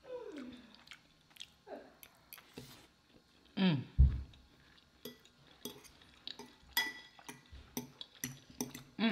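Close-up eating sounds: chewing and a short falling hum, a low thump about four seconds in, then a metal utensil clinking and scraping repeatedly against a glass bowl.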